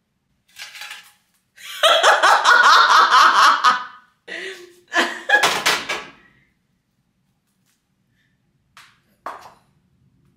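A woman laughing hard for about two seconds, then a few shorter laughs.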